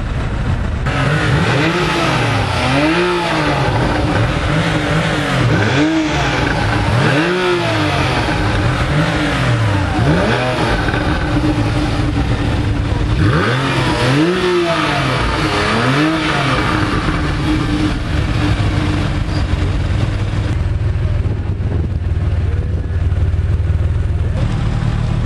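Sports car engines revved in repeated quick throttle blips, each note rising and falling: a Lotus Evora's V6 and then a Porsche 911 Carrera 4S's flat-six. From about two-thirds of the way through the Porsche settles to a steady idle.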